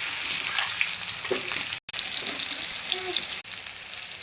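Soaked soya chunks frying in hot oil in a kadai: a steady sizzle that cuts out for an instant about halfway through.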